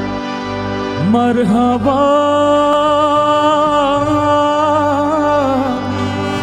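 Afghan song played live by a band with harmonium and tabla: about a second in, a melody line slides up into a long held, ornamented note that fades near the end, over a steady accompaniment.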